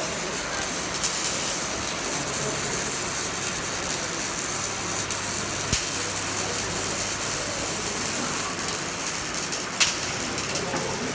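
Semi-automatic (MIG/CO2) welding arc crackling steadily, with a couple of sharper pops.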